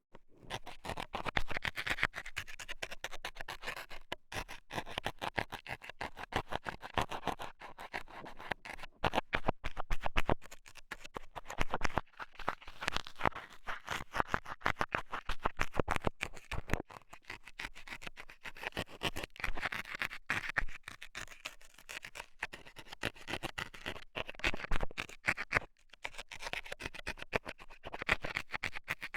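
Metal scaler scraping and poking rapidly in the ear of a binaural microphone: a dense, irregular run of sharp scratches and clicks, broken by a few brief pauses.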